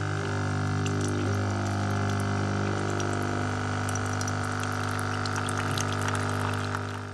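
Espresso machine's pump humming steadily as coffee runs through, with faint dripping ticks, then switching off abruptly at the very end.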